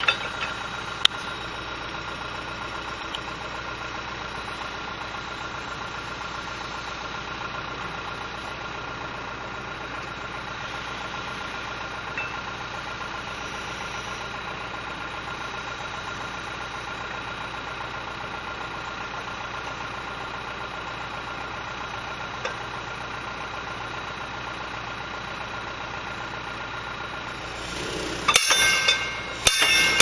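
A John Deere backhoe's diesel engine runs steadily. About two seconds before the end, its hydraulic rock hammer starts pounding a wooden fence post with loud, rapid blows.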